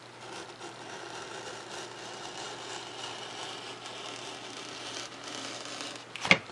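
A razor knife drawing through a sheet of 3mm Depron foam, a continuous scratchy cutting sound, with one sharp click near the end.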